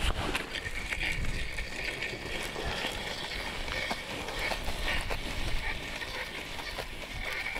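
Small ice-fishing reel being cranked to bring in a hooked fish on a bent rod, a fast steady clicking whir.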